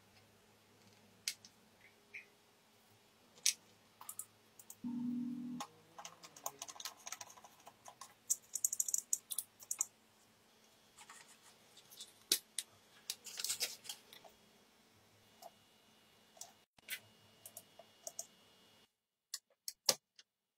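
Irregular small clicks, taps and scratchy rattles of parts being handled at close range, with a short low hum about five seconds in.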